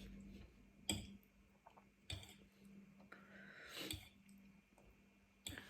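Faint eating sounds from chewing noodles and rice cakes: a handful of soft clicks and wet mouth noises spread through a near-quiet stretch, over a low steady hum.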